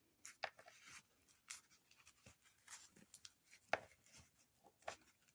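Faint, scattered rustling and small clicks of packaging being handled while the items are unwrapped, with a couple of sharper ticks near the end.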